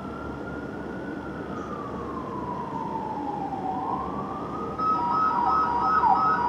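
Fire engine's dual sirens on an emergency run, coming closer. It starts as a slow wail rising and falling; about five seconds in it turns louder, with a fast yelp sweeping up and down over steady pulsing tones.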